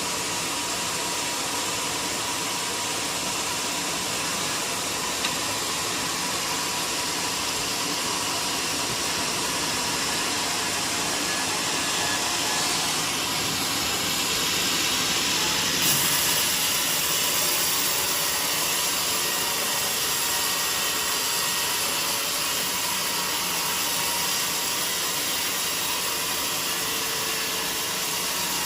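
Portable band sawmill running steadily, a continuous noisy machine sound that grows a little louder and hissier about sixteen seconds in.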